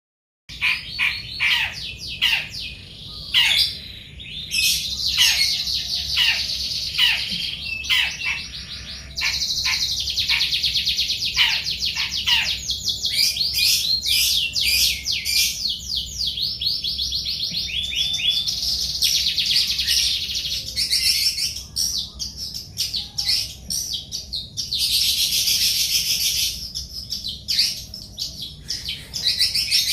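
Many small birds chirping and calling together without a break, with rapid downward-sweeping calls in the first several seconds and dense, steady chattering after that.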